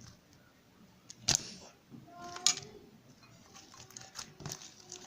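Slime handled by hand, giving a few sharp sticky clicks and pops, the loudest about a second in and again about two and a half seconds in.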